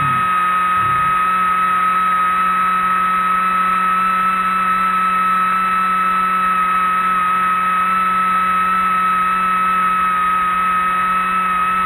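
RC Era C123 electric RC helicopter hovering, its motor and rotors giving a steady whine that holds one pitch throughout.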